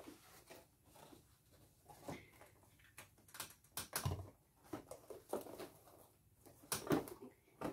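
Faint scattered knocks, clicks and rustles of a person moving about a small room and handling things, with a soft low thump about four seconds in.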